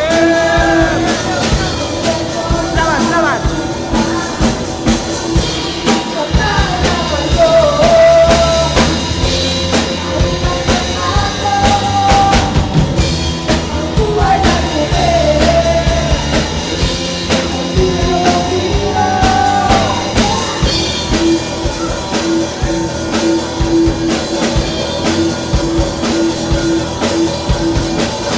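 Rock band playing live, with a drum kit and a singer. The vocal line stops about three-quarters of the way through and the band plays on.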